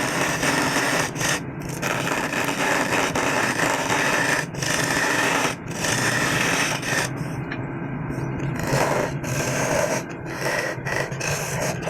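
Power tool working wood: a loud, rough scraping and grinding over a motor hum, broken by several short pauses.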